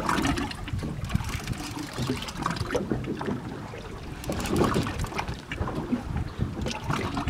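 Wind buffeting the microphone, with water lapping against a small boat's hull and a few scattered small knocks.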